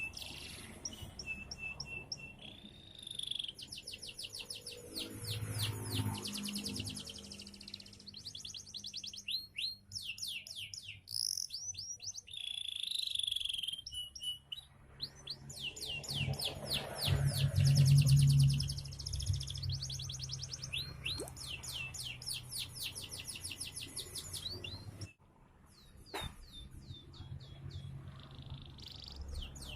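Domestic canary, a yellow 'kuning wortel' bird, singing long runs of rapid trills and chirps with short pauses between phrases. A low rumble swells under the song about halfway through, and the sound cuts out briefly near the end.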